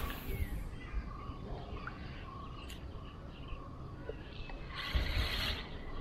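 A spinning fishing reel cranked briefly about five seconds in, a short burst of winding noise, over faint bird chirps.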